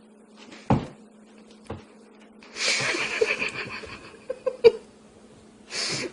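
Sounds of a pet cat: a couple of knocks, then a noisy spell of about a second, a few small clicks, and another short noisy burst near the end.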